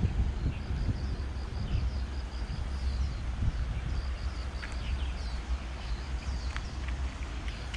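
Wind rumbling on the microphone outdoors, with small birds chirping: a run of short high chirps repeating about four times a second, and scattered single chirps.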